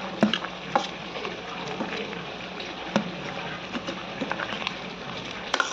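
A pot of chicken curry bubbling on the boil, a steady hiss with scattered small pops and clicks.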